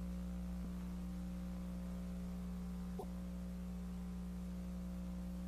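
Steady low electrical hum of several held tones, with a faint tick about three seconds in.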